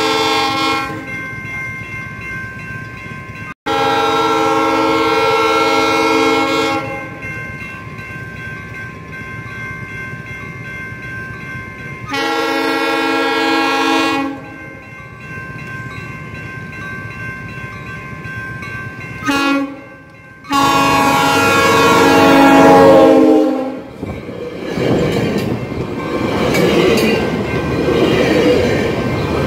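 Coaster commuter train horn sounding the long-long-short-long grade-crossing signal, after a first brief blast, over steady crossing-bell ringing. Near the end the train reaches the crossing, and the rush of its wheels and bilevel cars grows louder.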